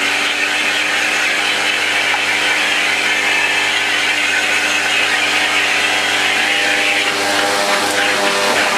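An electric motor running steadily with a strong rush of air, a continuous mechanical hum under an airy hiss, as dust is blown and drawn off a Dyson V6's cyclone assembly.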